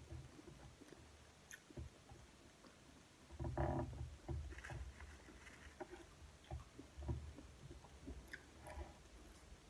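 Close-up chewing of boiled corn kernels: soft, irregular mouth noises and small clicks, with one louder burst about three and a half seconds in.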